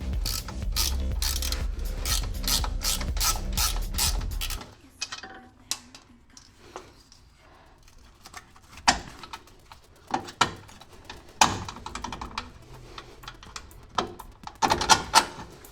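Socket ratchet wrench clicking steadily, about three clicks a second, as the 17 mm nut on a suspension arm's eccentric bolt is turned. After about four and a half seconds the ratcheting stops, leaving a few separate metal clicks and clinks.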